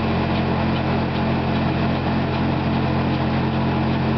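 Bornemann hopper-fed sludge pump and the dewatering centrifuge above it running steadily, a constant low machine hum with faint regular ticking, as dry sludge drops into the pump hopper.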